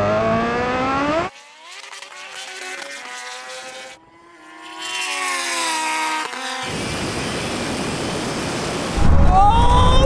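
Racing motorcycle engines at full throttle during a drag race, the engine note climbing in pitch, with the sound changing abruptly several times. Near the end it gives way to loud wind and road rush at high speed inside the Rimac Nevera, with a rising whine from its electric motors.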